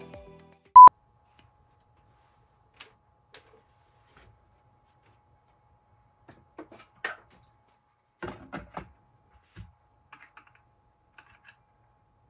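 A short, loud beep about a second in, then scattered light clicks and knocks as a whipped-cream can is handled and fitted into a plastic holder, with a small cluster of them a little past the middle.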